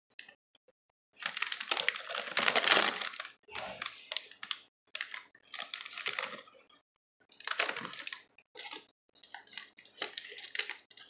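Plastic Doritos chip bag crinkling as a hand reaches in and rummages for a chip: a series of crackly rustles in bursts with short gaps, starting about a second in.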